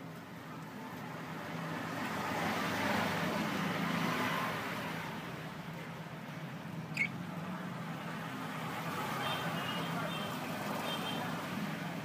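Road traffic passing in the background, swelling twice and fading, over a steady low hum. A single short high chirp cuts through about seven seconds in.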